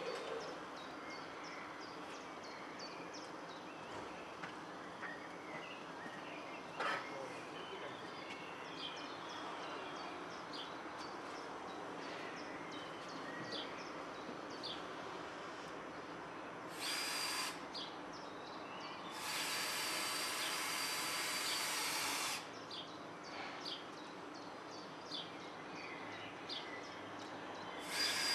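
Power drill or screwdriver running in short bursts: once briefly about 17 s in, then for about three seconds from about 19 s with a steady high whine, and again near the end, as wooden shingle elements are fixed to battens. Birds chirp throughout.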